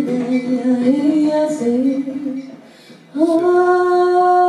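A woman singing without words into a microphone, in smooth gliding phrases, breaking off about two and a half seconds in and then holding one long steady note.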